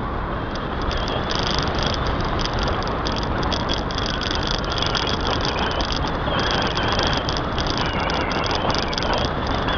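Car driving along a road, heard through a small action camera mounted on its outside: a steady rush of wind and road noise.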